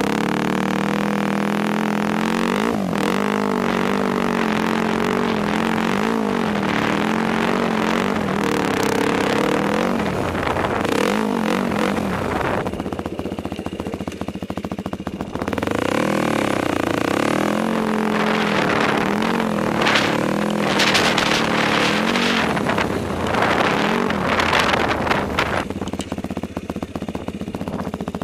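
Yamaha YFZ sport quad's engine under a rider, revving up and falling back again and again as the throttle is worked, settling to lower revs briefly about halfway through and again near the end.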